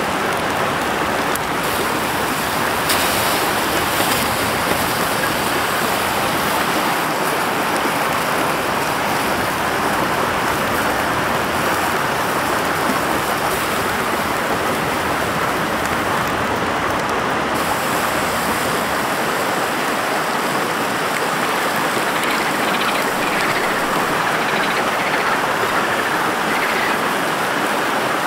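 Steady rushing of a forest stream, an even wash of flowing water that does not change.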